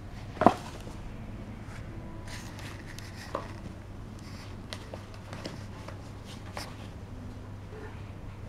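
Light taps and scuffling of a small cardboard box knocking against a woven rush mat as a kitten pushes into it and moves about wearing it, with one sharper knock about half a second in. A low steady hum runs underneath.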